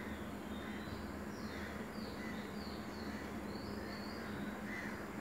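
Faint chirping of small birds, short high notes coming every half second or so, over a steady low hum.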